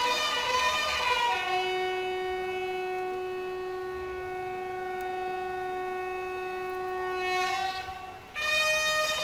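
Bugle call sounding for the lowering of the flags: a few short notes, then one long held note for about six seconds, a brief break near the end, and the notes start again.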